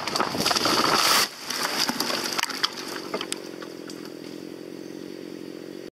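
A felled conifer's top crashing down: a loud rush of branches and needles swishing past, which cuts off suddenly about a second in as the tree lands. Then scattered sharp snaps of twigs over a chainsaw running steadily at idle.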